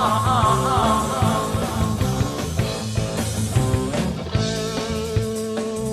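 Rock band playing live: electric guitar, bass and drums keeping a steady beat in an instrumental passage, with a long held guitar note coming in about two-thirds of the way through.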